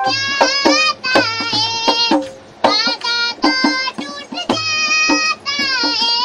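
A young girl singing in a high, clear voice, phrase after phrase with short breaths between, with a few low thuds underneath.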